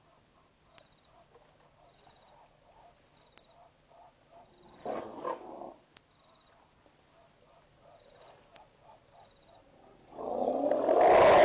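Frogs calling in a faint pulsing chorus at a waterhole at night. A short animal call comes about five seconds in, and a much louder one lasting about two seconds comes near the end.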